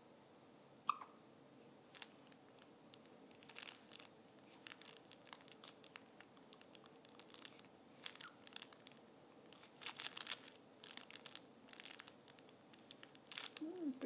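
A baby hiccups sharply once, about a second in, followed by soft, scattered, irregular little clicks and rustles. A brief baby vocal sound begins at the very end.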